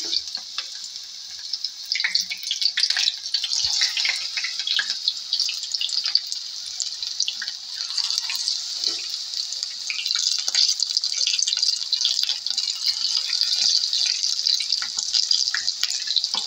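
Vegetable pakora batter frying in hot oil in a pan: a steady high sizzle with crackling pops, growing louder after the first couple of seconds as more lumps of batter go in.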